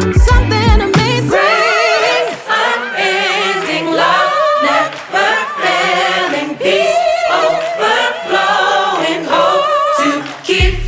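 Gospel song in an a cappella passage: several voices singing together with vibrato. The bass and drums drop out about a second in and come back near the end.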